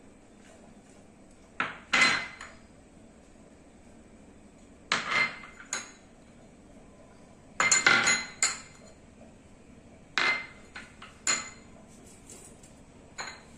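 Small glass bowls clinking against a stainless steel plate as spice powders are tipped out, in five short groups of sharp taps, each with a brief metallic ring.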